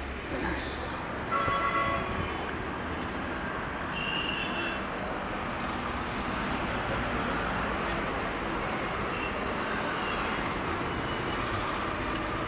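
Steady hum of city road traffic with a short vehicle horn toot about a second and a half in, and a second, higher-pitched toot about four seconds in.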